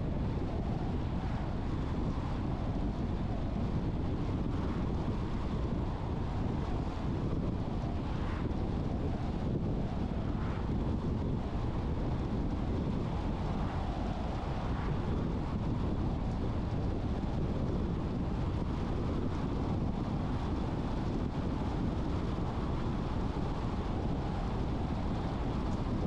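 A car driving at steady speed: an even low rumble of road and wind noise.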